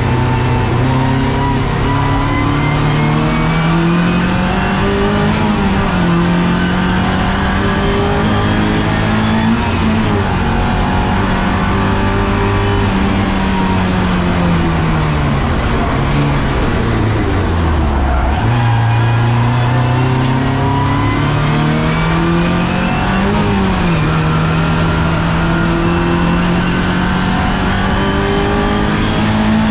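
Race car engine heard from inside its roll-caged cockpit on track, the revs held high and rising and falling with the driving. About two-thirds of the way through the revs sink steadily for several seconds to a low point, then jump back up and climb again.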